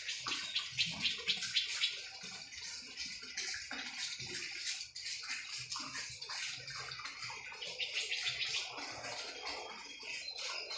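Crickets and other night insects chirping in rapid pulsed trills, high-pitched and continuous, with fainter scattered low sounds underneath.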